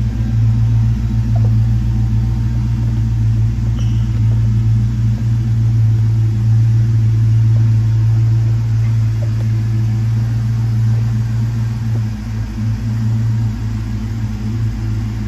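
Ford Mustang SVT Cobra R's V8 idling steadily with a deep, even rumble, still warming up shortly after a cold start.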